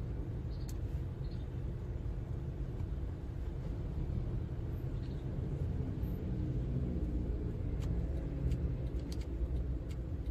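Steady low rumble of a car's engine and tyre noise, heard from inside the cabin while driving in traffic.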